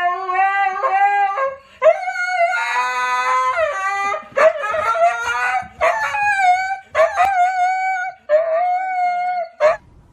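Dog howling in about six long, drawn-out calls held at a high, wavering pitch, with a second howl overlapping the first for a couple of seconds near the middle.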